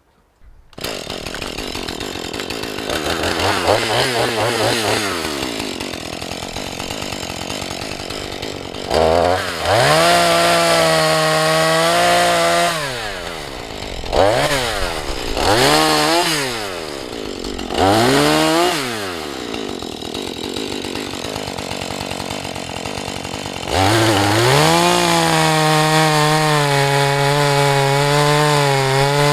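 Two-stroke Husqvarna 435 chainsaw running, coming in suddenly about a second in, revved up and let back down several times, then held at high revs from near the end.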